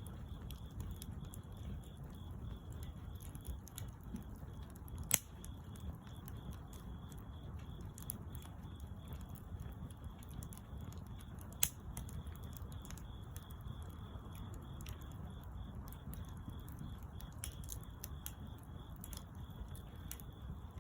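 Bonfire of wood burning with a steady low rush and scattered small crackles. Two sharp pops stand out, one about five seconds in and another about twelve seconds in.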